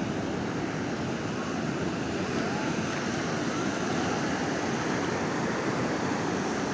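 Steady rushing noise with no distinct events, like wind, surf or road noise.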